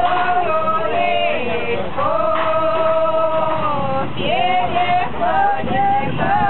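Singing: a slow melody that wavers in pitch, with a long held note in the middle. A low noise comes in underneath near the end.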